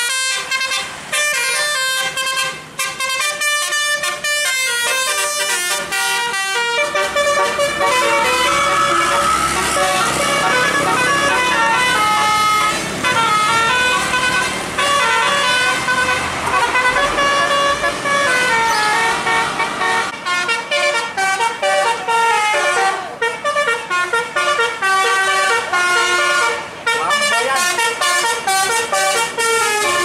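Indonesian tour bus musical air horns ("telolet") playing fast melodies. The notes step up and down, with several horn tones sounding together, over a low engine rumble.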